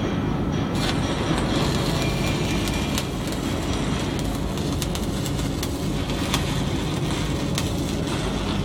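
Wire-feed welding arc running steadily, a continuous hiss with fast irregular crackling that stops near the end.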